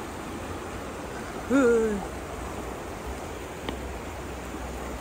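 Creek water running steadily, with a short voice sound falling in pitch about one and a half seconds in.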